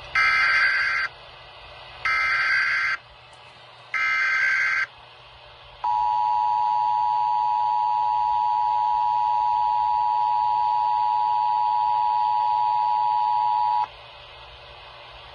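Emergency Alert System activation: three one-second bursts of SAME header data tones, then the two-tone EAS attention signal (853 and 960 Hz) held steady for about eight seconds before cutting off. It signals a local weather emergency, here a flash flood warning.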